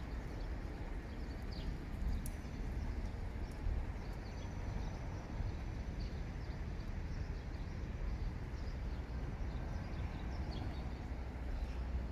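Outdoor ambience on a walk: a steady low rumble, with faint short high chirps and ticks scattered through it.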